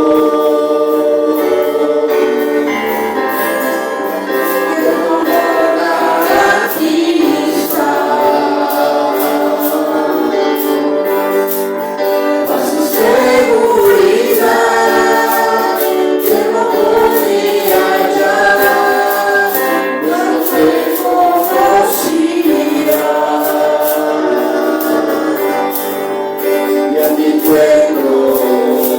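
Spanish-language Christian worship song: several voices singing together over instrumental accompaniment, with a steady percussion beat throughout.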